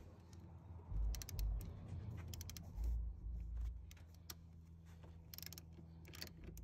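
Socket ratchet clicking in short bursts as it works the 10 mm nut on a car battery's negative terminal clamp. Low thumps about one and three seconds in are the loudest sounds.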